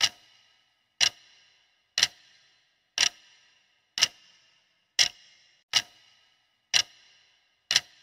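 Countdown-timer sound effect ticking like a clock, about one sharp tick a second, each with a short ring after it, nine ticks in all.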